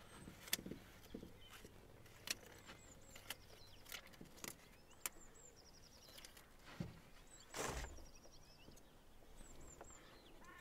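Faint clicks and crinkles of plastic backing film being peeled off an adhesive windscreen DAB antenna strip as it is pressed onto the glass, with one louder rustle about three-quarters of the way in.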